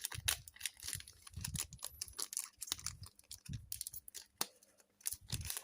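A foil trading-card pack and its cards being handled and opened: quick, irregular crinkling, tearing and clicking.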